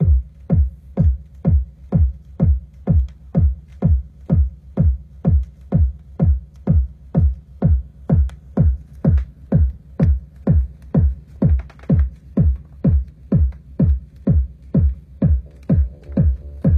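Intro of a 1993 deep house track playing from a vinyl record: a lone, steady kick drum at about two beats a second over a faint held note.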